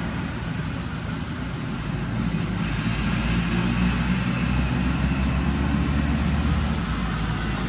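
Steady low rumble with an even hiss over it, outdoor background noise with no distinct events.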